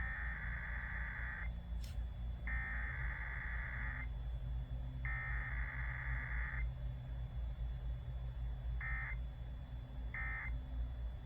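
Emergency Alert System SAME data bursts on an AM radio broadcast: three long bursts of harsh warbling digital tones about a second apart, then three short bursts near the end, marking a Required Weekly Test. A steady low hum from the radio reception runs underneath.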